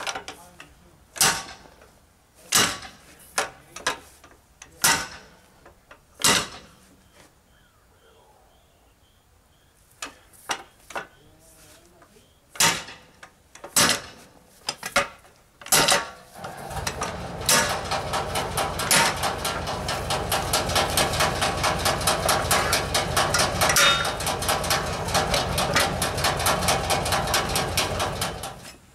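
A long steel bar driven down again and again between an old tractor tire's bead and its steel rim to knock the tire off: sharp metallic strikes about every second and a half, with a pause in the middle. About two-thirds of the way through, a dense, fast clatter of many rapid strikes takes over and runs until just before the end.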